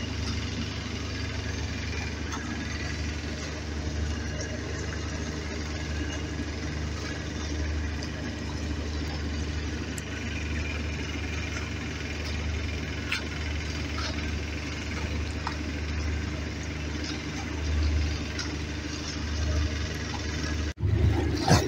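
Steady low drone of an idling boat engine, even in level throughout. It breaks off for an instant near the end.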